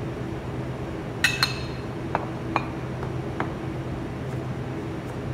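A ceramic plate set down on a cutting board with two quick ringing clinks about a second in, followed by three lighter taps of a knife cutting a tomato on the plastic board. A steady machine hum runs underneath.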